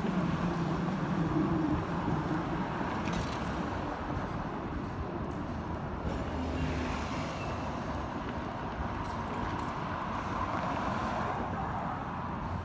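Steady running noise of a Hong Kong double-decker tram in motion, heard from its upper deck, with road traffic around it. A low hum is louder for the first couple of seconds, then the sound settles to an even rumble.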